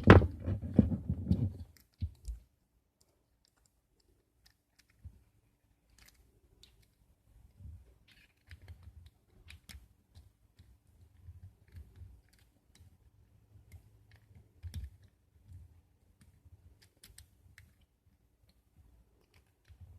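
Master Lock No. 3 padlock being picked: a loud clatter of clicks in the first two seconds as the first lock comes open and is handled, then faint scattered clicks and light scraping of the pick and tension wrench working in the second lock's pin-tumbler core.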